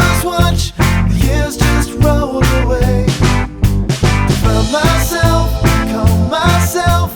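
Background music: an upbeat rock song with bass, drums and a sung melody.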